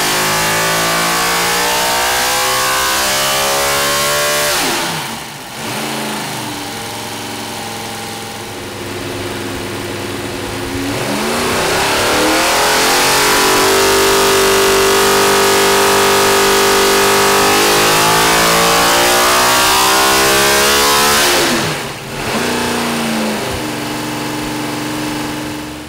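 Chevrolet R07 NASCAR V8 engine running on an engine dyno: its revs climb and run high, fall away sharply about five seconds in, build again to a long steady high-rpm run, then drop back to a low steady idle near the end.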